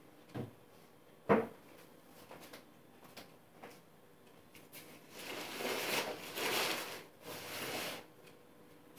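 Two knocks, the second one sharp, followed about four seconds later by rustling that comes in three swells about a second long each.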